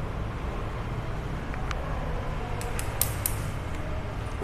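Steady low hum of room tone with a few faint short clicks, clustered about three seconds in.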